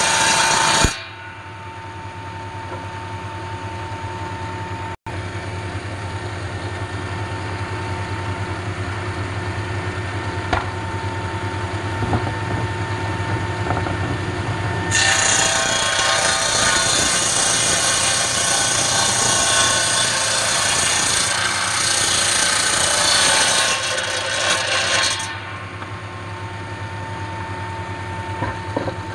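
Table saw with a large circular blade cutting wood. A loud rip cut ends about a second in, leaving the blade running free with a steady motor hum and whine. Near the middle a log is pushed through the blade in a loud cut lasting about ten seconds, then the blade runs free again.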